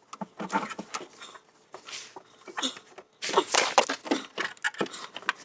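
Scraping and rustling of hands and a plastic charcoal canister being worked free from its mounts under the car, in irregular strokes, with a louder stretch of rubbing noise about three seconds in.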